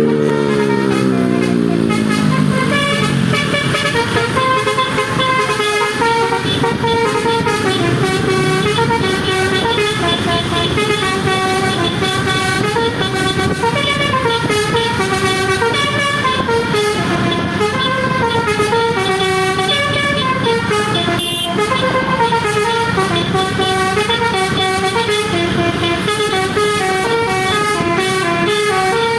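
Basuri telolet bus horn playing a continuous tune of quick stepped notes that change about every half second. In the first few seconds a low pitched sound slides steadily downward beneath it.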